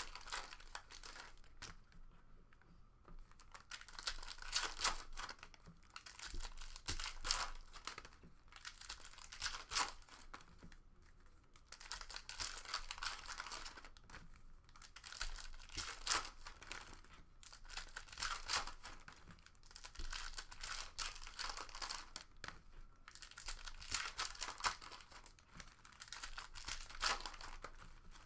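Foil trading-card pack wrappers being torn open and crinkled by hand, in irregular crackling bursts every second or two, with the cards being handled in between.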